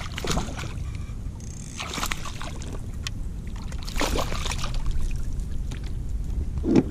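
A small hooked fish thrashing at the water's surface beside a kayak, splashing in several short bursts, over a steady low rumble.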